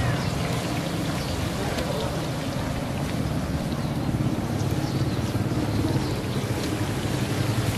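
Potato pakoras deep-frying in a wide karahi of oil over an open wood fire: a steady sizzle with faint crackles over a low rumble.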